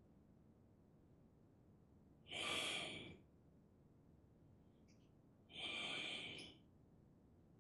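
A person's breathing: two long audible breaths of about a second each, some three seconds apart.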